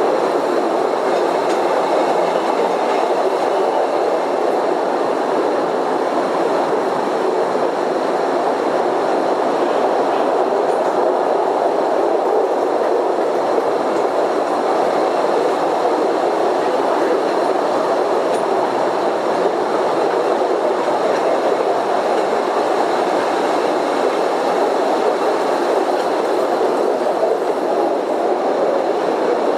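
Small cave tourist train rolling along its rails, a steady, even running noise of wheels and carriages that does not change.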